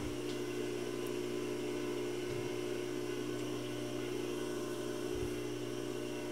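Steady electrical hum of shop machinery with several steady tones, and a couple of faint low knocks as the lathe's tailstock is slid up to the work.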